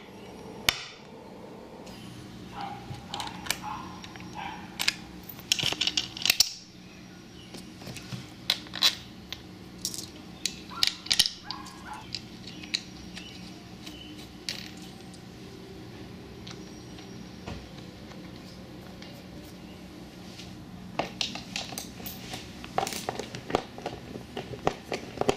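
Small metal hardware clicking and tapping as nuts and washers are handled and fitted onto the bolts of a transom mounting plate. Irregular sharp clicks come in clusters, busiest in the first half and again near the end, with a quieter stretch between.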